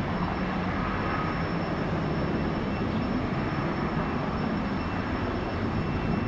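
Jet engines of a departing Airbus A320-200 at takeoff power: a steady, even rumble with no change in pitch.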